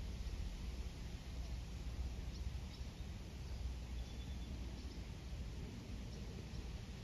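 Faint outdoor ambience: a steady low rumble with a few short, faint bird chirps scattered through it.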